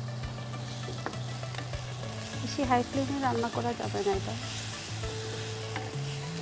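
Chopped onions with ginger and garlic paste sizzling in hot oil in a nonstick frying pan, stirred with a wooden spatula that clicks and scrapes against the pan as the onions brown. Background music plays underneath.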